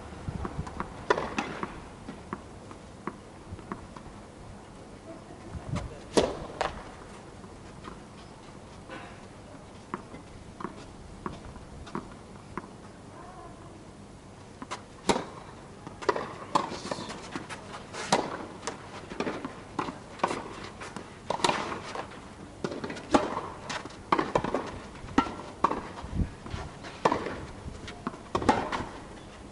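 Tennis ball bounced on the court before a serve, then struck hard on the serve about halfway through and a rally follows: a string of sharp racket hits and ball bounces.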